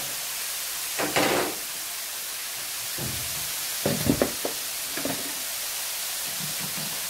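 Utensil knocks and clatter against a stainless steel pan holding grated carrots: a scrape about a second in, then a quick run of sharp knocks around four seconds in, over a steady hiss.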